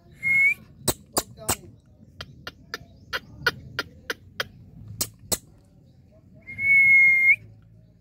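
Two clear whistles held at one steady pitch, each turning up slightly at its end: a short one at the start and a longer one near the end. Sharp clicks are scattered between them.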